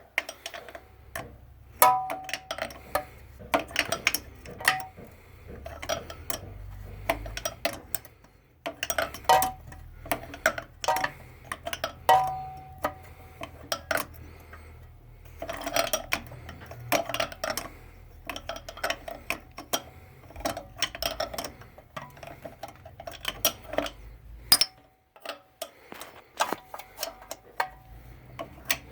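Ratchet wrench clicking in quick bursts as the starter mounting bolts are turned out, with metallic clinks of the tool against the engine.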